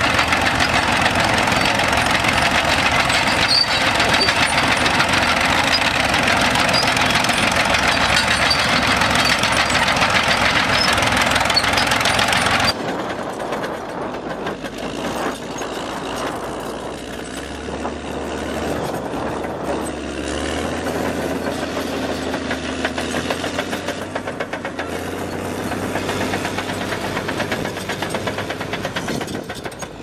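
For about the first thirteen seconds, a vintage crawler tractor's engine running under a loud, even rush of noise. Then the sound cuts to a Caterpillar D7R bulldozer's diesel engine running steadily as it works, quieter.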